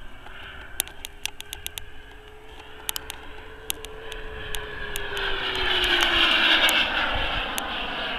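Turbine of a radio-controlled Boomerang Sprint model jet in flight. A steady whine drops in pitch during the second half as the jet passes, while a rushing roar swells and peaks near the end.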